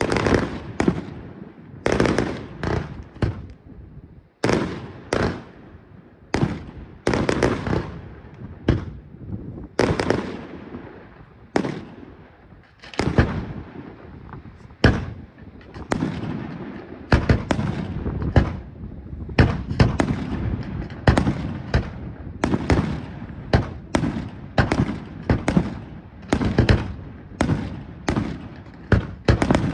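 Professional display fireworks: aerial shells launching and bursting one after another in sharp bangs, spaced out at first and coming several a second in the second half.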